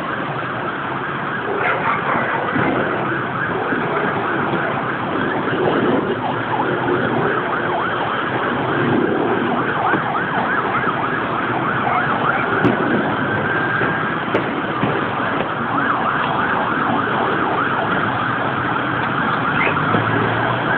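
Emergency vehicle sirens wailing over a steady, dense wash of street noise, with a few short knocks standing out.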